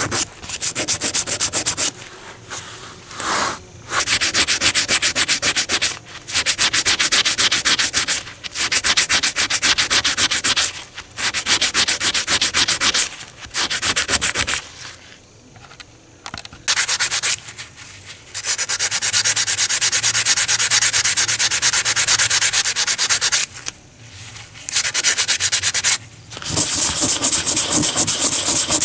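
A steel hex nut rubbed back and forth by hand on a sheet of sandpaper: spells of fast, rasping strokes broken by short pauses.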